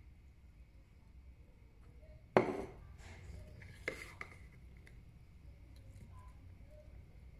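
Ceramic bowls and a metal spoon being handled: one sharp clink about two and a half seconds in that rings briefly, then two lighter clinks a second and a half later.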